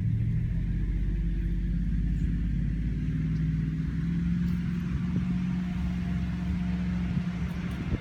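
A steady, low engine drone with a rumble beneath it, its pitch drifting slowly.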